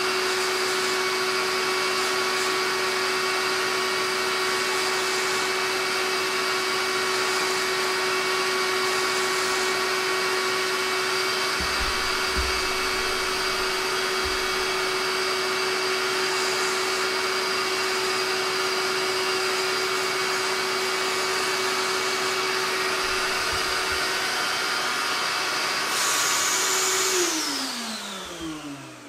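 Shop vacuum running steadily with a steady whine, driving the air-powered Dremel VRT1 rotary tool as its cutoff wheel is held to a steel bar. About a second from the end the vacuum is switched off and spins down, its pitch falling away.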